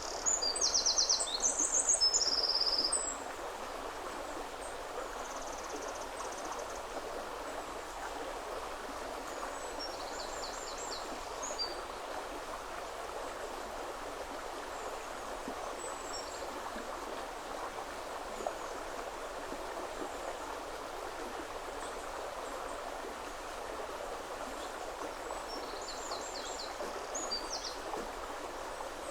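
River water flowing steadily, with a small songbird singing high, rapid phrases of repeated notes over it. The song is loudest in the first three seconds, then comes back fainter about ten seconds in and again near the end.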